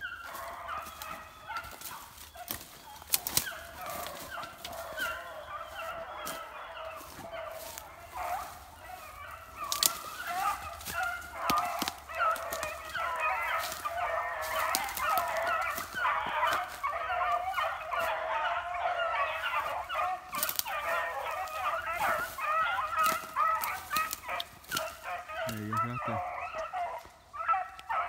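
A pack of beagles baying together in a continuous overlapping chorus, the hounds in full cry as they run a scent trail. The chorus grows louder about ten seconds in, with a few sharp clicks close by.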